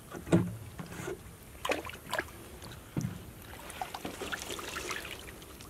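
Water splashing and sloshing as a woven bamboo fishing basket is worked in shallow water. There are several short splashes, the loudest about a quarter second in. About four seconds in, water rushes and trickles out through the weave as the basket is lifted.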